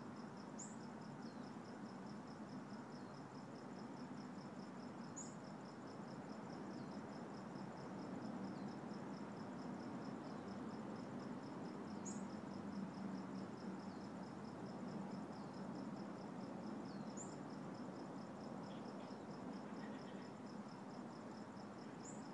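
Insects trilling in a steady, high-pitched, finely pulsing buzz, with a short high chirp every five seconds or so, over a low steady background hum.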